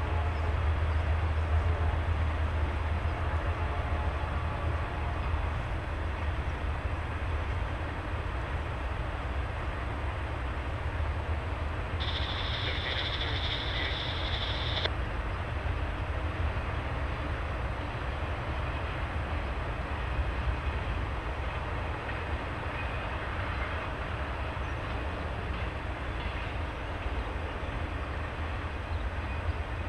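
Long intermodal freight train of highway trailers rolling past at a distance, a steady rumble of wheels on rail.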